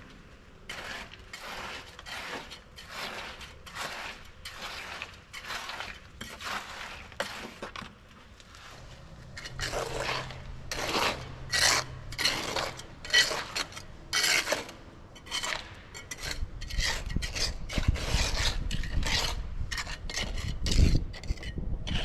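Repeated scraping strokes, a little slower than two a second, louder about halfway through. A low engine rumble comes in near the end.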